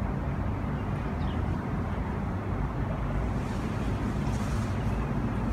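Wind of a sandstorm buffeting the phone's microphone: a steady low rumble, with a faint hiss rising in the second half.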